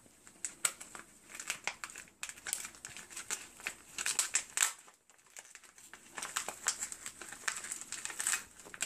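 Thin clear plastic cup crinkling and crackling irregularly as hands work a plant's roots out through it, with a short lull about halfway.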